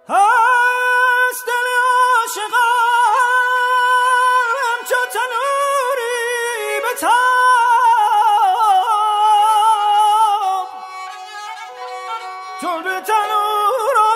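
Persian classical music: a solo melodic line of held notes ornamented with quick trills, wavering pitch and slides. It comes in abruptly and turns softer for a couple of seconds near the end.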